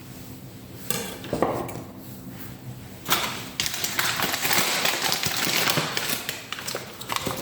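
Eggs being cracked with a big knife: sharp taps of the blade on the shells, with a few seconds of steady rustling noise in the middle.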